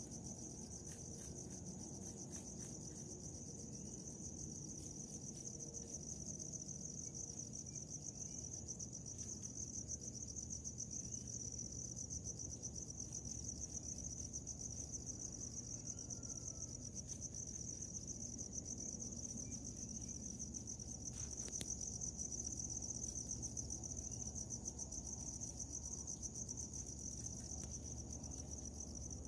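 Crickets chirping, a continuous rapid high trill, over a low background rumble.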